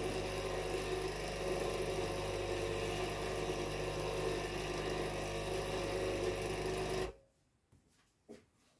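Capsule coffee machine's pump buzzing steadily, then cutting off abruptly about seven seconds in, followed by a couple of faint knocks. The machine seems not to be working properly.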